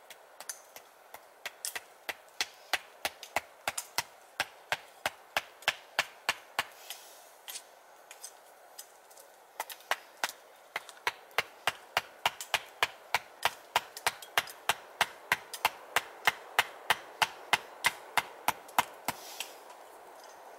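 Gränsfors Bruks small forest axe striking wood in quick, steady blows, about three a second, with a short pause about a third of the way through.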